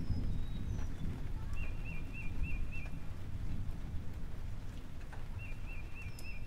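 A bird singing a short warbling phrase of quick wiggling notes, twice, with a few brief high whistles, over a steady low rumbling noise.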